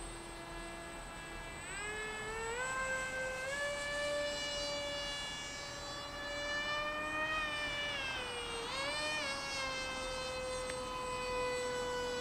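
Electric motor and propeller of a Z84 RC flying wing whining in flight. The pitch climbs as the throttle is advanced about two seconds in and then holds steady. It dips sharply and comes back up near nine seconds, then eases off slightly toward the end.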